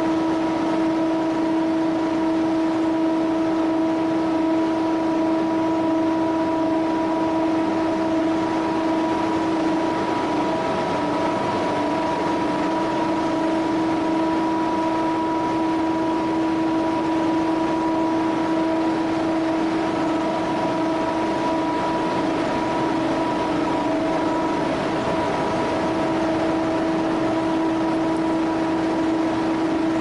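Univac industrial vacuum loader running at a steady speed: a constant droning whine over an even hiss, unchanging throughout.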